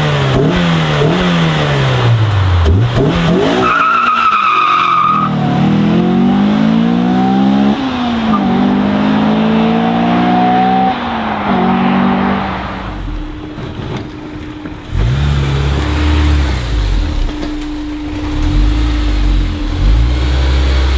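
Stock-exhaust Honda S2000 engine revving up and down, then pulling up through the revs several times with the pitch rising. There is a brief high squeal about four seconds in, and a lower, steadier running rumble in the second half.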